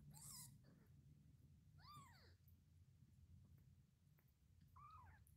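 Newborn kittens mewing faintly: three short, high cries that each rise and fall, near the start, about two seconds in, and near the end.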